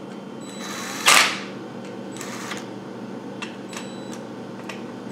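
Cordless drill-driver running a bolt down into an aluminium water pump housing in one short burst about a second in, followed by a few light clicks of tools being handled.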